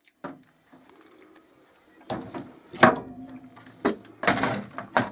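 Several sharp knocks and short scraping clatters of parts being handled and worked by hand, the loudest a little under three seconds in and again near the end, with a faint ringing between them.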